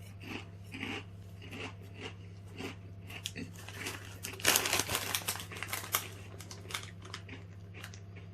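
Close-up chewing of thick potato crisps, a crunch every third of a second or so, then a louder crinkle of the crisp packet being handled about halfway through, with a few lighter crunches after. A low steady hum runs underneath.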